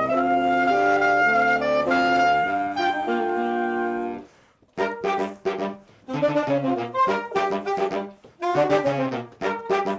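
Saxophone quartet playing in harmony: held chords that die away about four seconds in, then, after a brief pause, short detached chords in quick phrases with small breaks between them.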